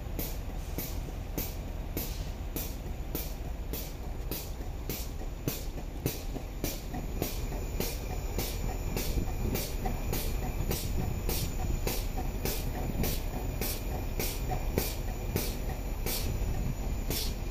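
Air-powered grease gun pumping grease into the lowbed trailer's leaf-spring suspension fittings. It clicks sharply and evenly, about twice a second, over a steady low rumble.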